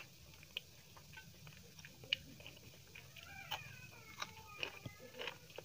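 Close-up eating sounds: wet chewing and sharp mouth clicks from eating rice and dal by hand. A short animal call is heard about three seconds in, among the clicks.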